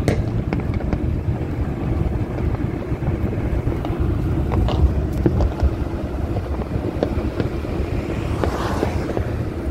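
Steady low road and wind rumble of a car driving at highway speed, with faint, scattered sharp pops of distant firecrackers.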